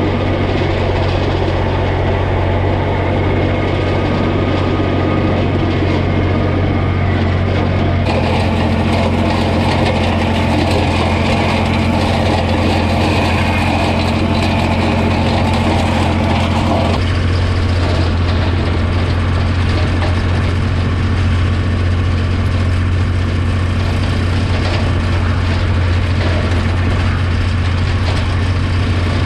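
Holder A45 vineyard tractor's engine running steadily at a constant speed, with mechanical clatter on top. The sound changes abruptly twice, about eight and seventeen seconds in.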